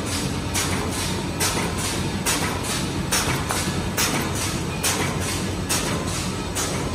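Tube-film side-seal patch-handle bag making machine running in production: a short hissing stroke repeats evenly a little faster than once a second, each one a bag-making cycle, over a steady mechanical hum.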